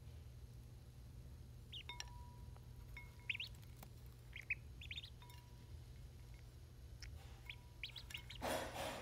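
Ducklings peeping softly: a scatter of short, high, rising chirps. There is a brief rustle near the end.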